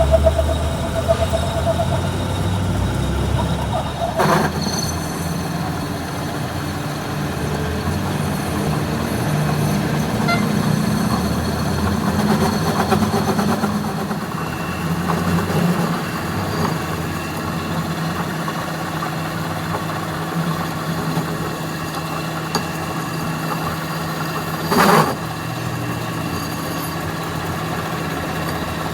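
An engine idling steadily, with a sharp knock about four seconds in and a louder one near the end.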